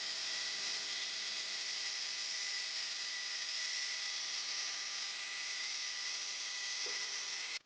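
Steady hiss with a faint, constant high whine, cutting off abruptly near the end.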